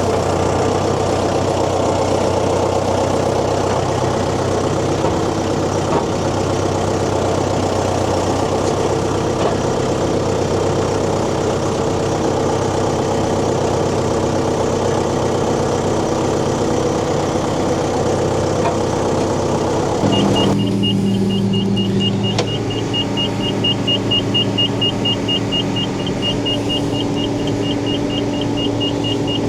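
Farm machinery engine running steadily under load. About two-thirds of the way through, the sound changes abruptly to a smoother, lower engine tone with a rapid, regular high-pitched ticking.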